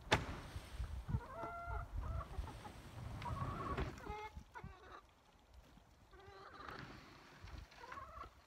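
Chickens clucking in short, scattered calls, with a sharp thump just after the start as a wheelbarrow load of wood chips is tipped out.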